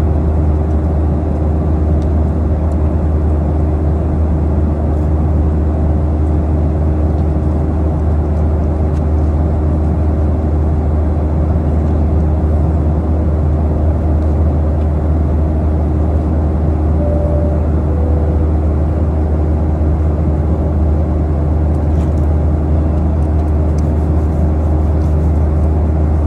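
Steady cabin noise of a Boeing 737-800 in flight: an even, deep rush of airflow and CFM56-7B engines under a constant two-tone hum. About two-thirds through, a short two-note falling tone sounds.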